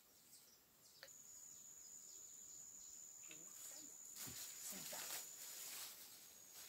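Faint outdoor quiet with an insect's steady high-pitched call starting about a second in, and a few soft rustles in the middle.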